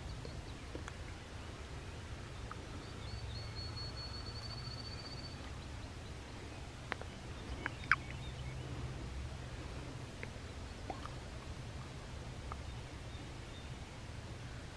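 Quiet woodland ambience over a steady low rumble. A small bird gives one high, even trill about three seconds in, lasting a couple of seconds, and a few sharp clicks follow, the loudest near the middle.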